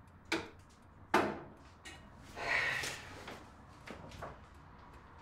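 Two sharp knocks about a second apart, then a brief rustling swish and a few faint ticks: someone handling a record turntable just after its music has been stopped.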